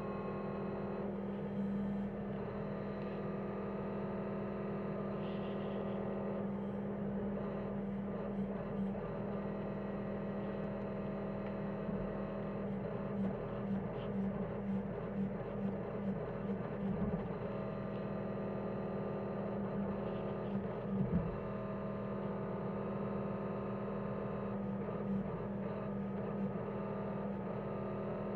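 John Deere 325G compact track loader's diesel engine running steadily under way, with a run of about two light knocks a second in the middle and one louder knock a little later.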